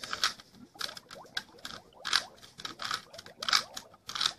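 Plastic 3x3 Rubik's cube being twisted over and over, its layers clicking and scraping as they turn, about two or three turns a second.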